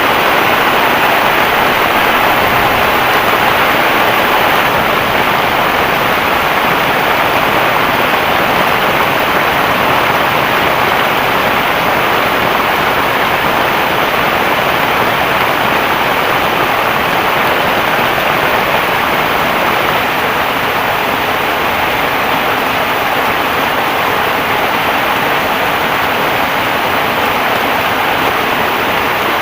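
Heavy rain falling in a dense, steady hiss.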